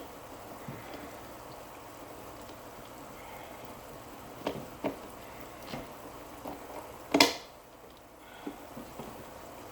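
Knocks and clicks of plastic aquarium filter hose fittings being handled: several light taps, then one much louder knock about seven seconds in, over a steady low hiss.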